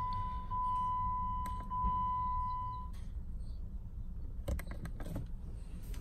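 A steady high electronic beep tone that stops about halfway through, followed by a few light clicks from handling.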